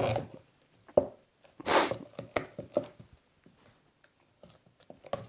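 A wooden stirring stick dips and stirs thick, lumpy alginate in a plastic jug, giving wet squishing with sharp knocks of the stick against the jug wall as lumps are crushed against its side. One louder, short hissing burst comes just before two seconds in.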